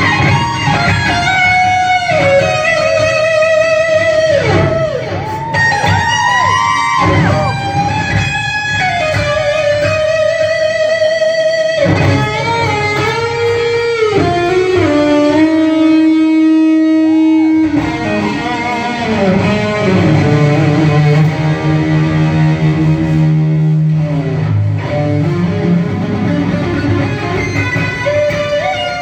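Live rock band playing, led by an electric guitar holding long notes with bends and vibrato over bass and drums.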